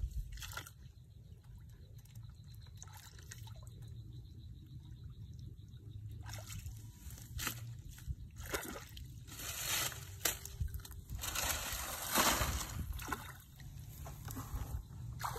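Shallow muddy water sloshing and trickling as hands feel through it and the grassy bank, with short splashes that come more often from about halfway through.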